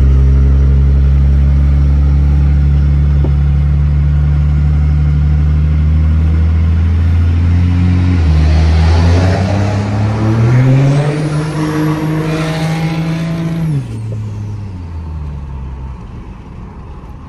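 Turbo-diesel pickup engine heard from inside the cab. It runs steadily, then about eight seconds in it pulls harder, its pitch climbing along with a rising high turbo whistle. A few seconds before the end it drops off suddenly and winds down.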